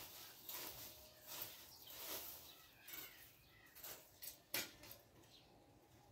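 Rake scraping over dry dirt in a run of short strokes, then a sharp knock about four and a half seconds in, after which the scraping stops.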